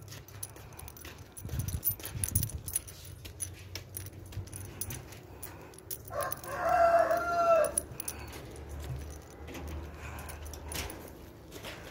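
A rooster crows once in the background, one long call of about a second and a half, about six seconds in. Around it, the plastic courier mailer crinkles and rustles as it is handled.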